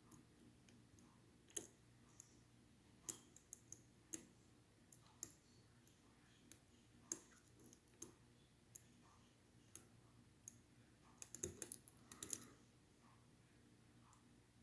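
Light, irregular clicks of a lock pick working the sidebar finger pins inside a Schlage Primus Everest cylinder, with a quick flurry of clicks near the end.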